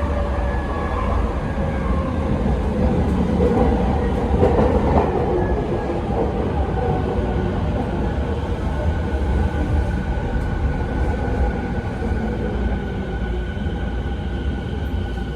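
Running sound inside a Rinkai Line 70-000 series electric train with a Mitsubishi IGBT-VVVF inverter: a steady low rumble of wheels and motors under thin inverter tones. The tones drift slowly in pitch and rise through the second half, with a rougher stretch of rail noise about four to five seconds in.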